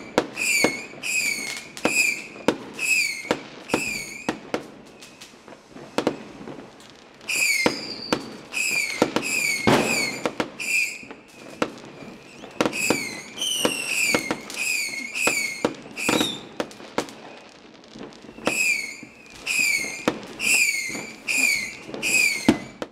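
Fireworks going off in quick succession: sharp bangs and crackling pops, with runs of short, slightly falling whistles at about two a second that pause briefly a couple of times.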